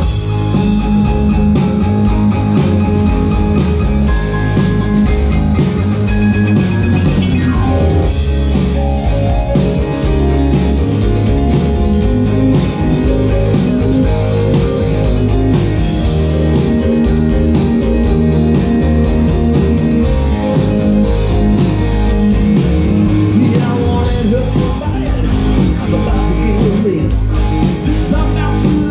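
Live rock band playing through stage speakers: guitars over a drum kit, with a steady beat and fast cymbal ticks.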